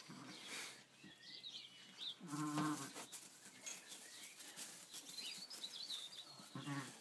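Ewe bleating over her newborn lamb: a low, wavering call about two seconds in and a shorter one near the end.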